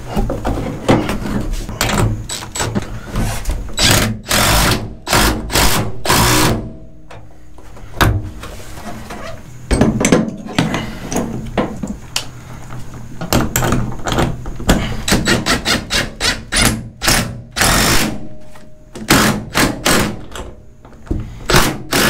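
Cordless impact driver running in short bursts of rapid hammering as it cinches down the bolts of camper shell clamps, with clacks and knocks as the clamps are set on the bed rail.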